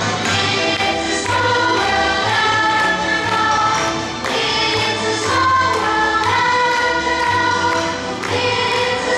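Recorded music with choir-like voices holding long notes over a steady beat.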